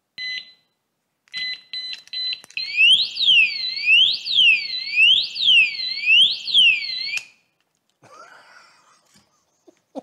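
REAPP 110 dB motorcycle alarm disc lock going off: a short beep, then a run of quick warning beeps, then a loud siren sweeping up and down in pitch over and over. The siren cuts off suddenly about seven seconds in.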